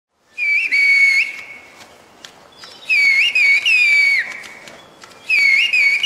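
A woman whistling in the whistled Turkish 'bird language' (kuş dili) with two fingers in her mouth: three loud, shrill phrases of quickly gliding pitch, each trailing off in an echo. The last phrase carries a message meaning 'bring a bag'.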